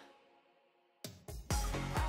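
Background music: one track fades out, then after about a second of near silence a new track with a heavy bass beat starts.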